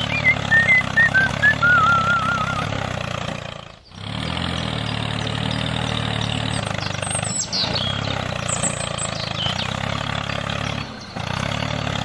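Tractor engine running steadily. It cuts out abruptly about four seconds in and again near the end, and high whistling chirps sound over it in the first few seconds.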